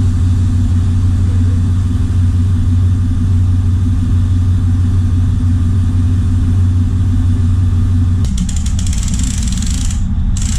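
Shrimp trawler's engine running with a steady low drone. About eight seconds in the drone weakens and a hissing, crackling noise joins it.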